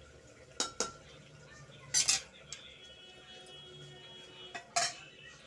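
Metal ladle clinking and knocking against an aluminium pressure cooker while the dal is stirred and scooped: a light clink near the start, louder clinks about two seconds in, and another loud one just before the end.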